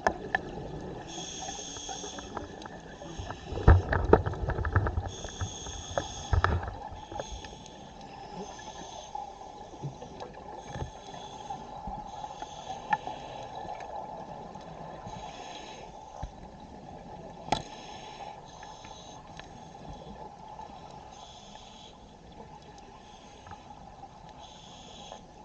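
Scuba divers breathing underwater through their regulators: short hissing breaths every second or two over a steady underwater hum. A burst of low rumbling and knocks comes about four to six seconds in, and a single sharp click later on.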